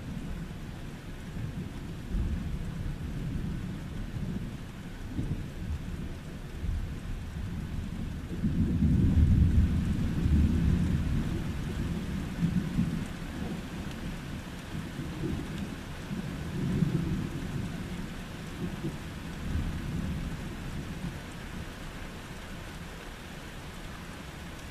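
Thunder rolling over steady rain. The deep rumble swells to its loudest about a third of the way in and dies away slowly, with a smaller roll a few seconds later.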